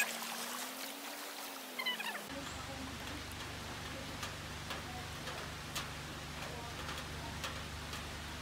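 Outdoor ambience: a light hiss with scattered faint clicks and chirps. About two seconds in, the sound changes abruptly: a steady tone gives way to a steady low hum.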